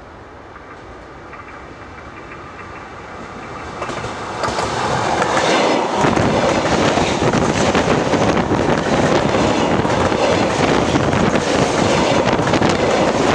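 ET2M DC electric multiple unit approaching head-on and then rolling directly overhead. A growing rumble builds to a loud, dense clatter of wheels and bogies over the rails about four to six seconds in, and that clatter stays loud to the end.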